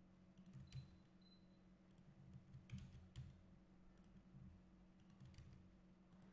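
Near silence with a few faint, short clicks from a computer keyboard and mouse, over a low steady hum.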